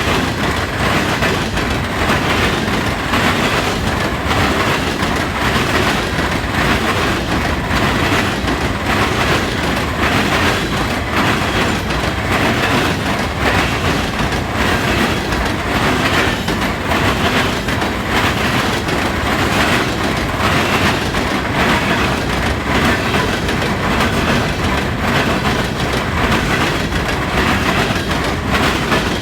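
Coal train cars passing fast, their wheels hammering over railroad diamond crossings in a steady, dense run of loud clacks and bangs.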